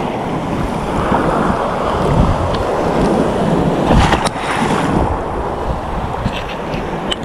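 Wind buffeting the microphone over the rush of surf, with rustling from the camera rubbing against clothing and a few sharp clicks about four seconds in and near the end.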